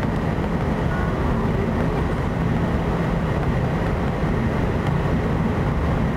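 Cabin noise of an Airbus A320 taxiing: its jet engines running steadily at low thrust, heard through the fuselage as a steady low hum with a faint higher whine.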